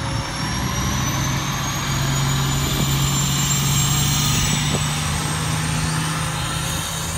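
Fire engine pumper driving slowly past, its diesel engine running with a steady low drone that is loudest about four seconds in, as it passes broadside. A thin high whine climbs slowly in pitch throughout. No siren is sounding.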